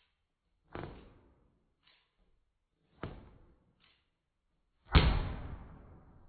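A rubber balloon popped with scissors, heard in slow-motion playback: a loud sudden bang near the end that dies away slowly over about a second and a half. Before it come two softer knocks.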